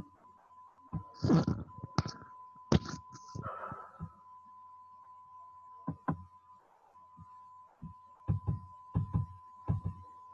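Scattered light knocks and short scratchy sounds at irregular intervals, busiest in the first few seconds and again near the end, over a steady high-pitched tone.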